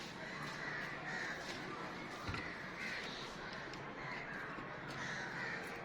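Birds calling over and over, with faint taps now and then.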